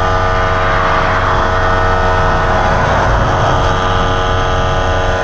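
Air compressor running steadily while inflating a flat tire, a constant motor hum with several steady tones.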